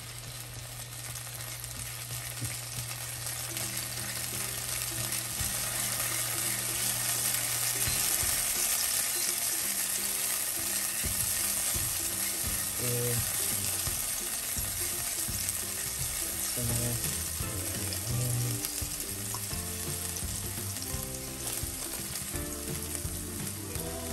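Minced garlic sizzling in hot olive oil in a nonstick skillet, stirred with a spatula; the sizzle grows louder over the first several seconds and then holds steady.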